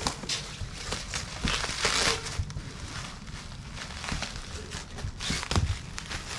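Packing wrap being pulled and torn off a piece of furniture by hand, crinkling and tearing in irregular bursts.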